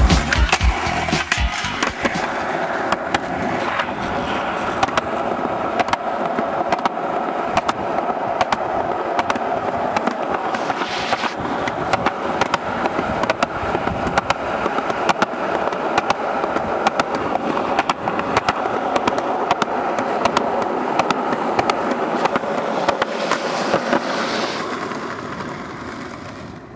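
Skateboard wheels rolling steadily over concrete and asphalt, with many small clicks from cracks and grit. The sound fades out near the end.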